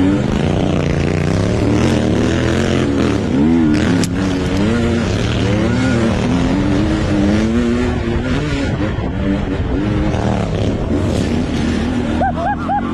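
Off-road motorcycle engine revving up and down under changing throttle while riding a dirt trail, with wind noise on a helmet-mounted microphone. Near the end a second dirt bike's engine revs close by in a few quick blips.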